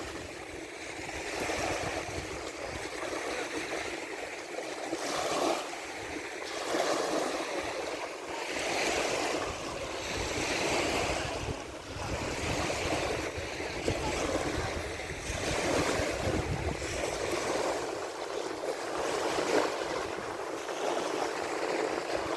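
Sea waves breaking and washing on the shore, a steady surge that swells and eases every couple of seconds.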